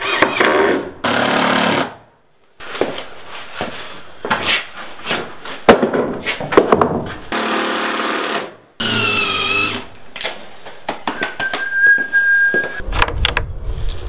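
Cordless power driver running in short bursts, a few seconds apart, driving screws to fasten a wooden board, with knocks and clicks in between; in one burst the motor's pitch rises and falls.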